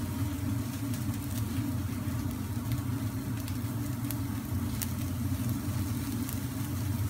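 Skewered lamb lule kebabs sizzling on a hot, flaming grill, with a few faint crackling pops over a steady low rumble.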